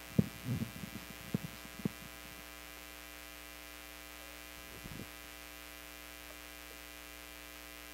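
Steady low electrical hum in a quiet room, with a few soft thumps and muffled movement sounds in the first two seconds and one more soft thump about five seconds in.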